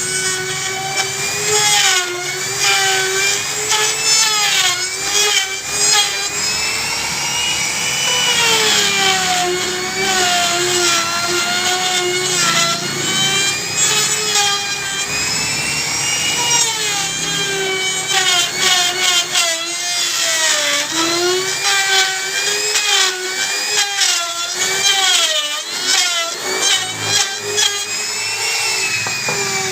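Electric power tool boring into wood: a steady motor whine whose pitch sags and recovers as the bit bites and clears, with short clicks and crackles of cutting.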